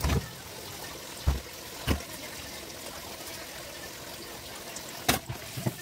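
Tap water running steadily into a stainless steel sink while dishes are washed by hand, with several sharp clinks of dishes and utensils knocking together.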